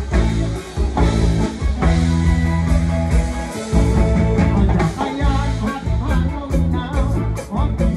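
Live rock band playing, with bass, guitar and drums under a male vocalist singing into the microphone; the singing stands out most in the second half.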